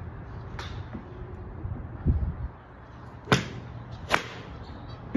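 Two crisp clicks of golf irons striking balls off driving-range mats, about a second apart, the later one his own iron shot. A dull thump comes about two seconds in.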